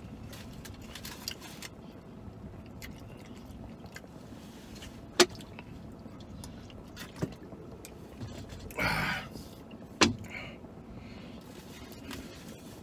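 Eating and drinking sounds inside a vehicle cab over a steady low hum: chewing, a drink from a bottle, two sharp clicks about five and ten seconds in, and a short rush of noise just before the second click.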